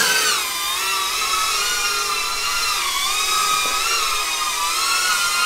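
Shendrones Squirt HD FPV drone's motors and propellers whining in flight, the pitch wavering up and down with the throttle.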